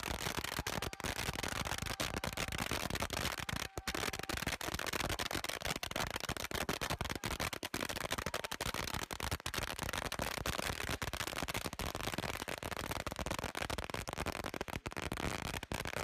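Fireworks going off, throwing sparks: a dense, continuous crackling of many small pops.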